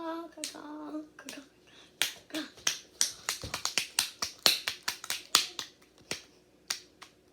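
Slime being squeezed and poked by hand, giving a quick, irregular run of sharp pops and clicks that thins out near the end.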